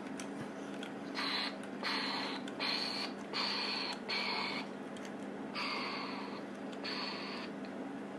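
Seven short breaths close to the microphone, about one a second, over a steady low electrical hum.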